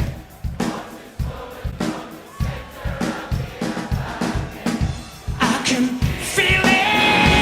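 Live rock band playing with singing over a steady drum beat; about five seconds in, the full band comes in much louder with sustained electric guitar.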